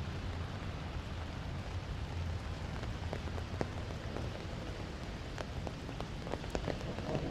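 Steady rain falling, with scattered individual drops ticking sharply close by. A low rumble sits underneath, strongest in the first couple of seconds.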